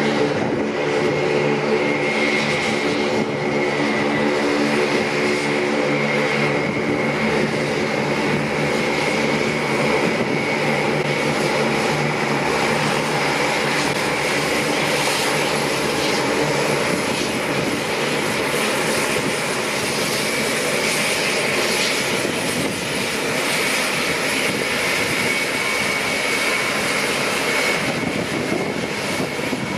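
Lockheed CC-130J Hercules taxiing past on its four Rolls-Royce AE 2100D3 turboprops with six-bladed propellers: a loud, steady propeller drone over a high turbine whine. The low humming propeller tones are strongest as the aircraft approaches and fade after about ten seconds as it goes by.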